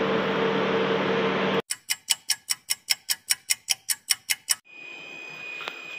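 Steady running noise inside a city bus, with a low engine hum. It cuts off abruptly about one and a half seconds in, giving way to an even ticking sound effect of about five clicks a second for roughly three seconds. Near the end a quieter steady background with a thin high tone follows.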